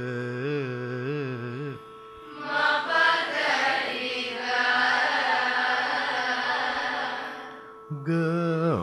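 Carnatic swaram singing in raga Anandabhairavi over a steady drone. A man's voice sings a phrase with oscillating gamakas. Then a group of voices sings a longer phrase together for about five seconds, and the single voice comes in again near the end.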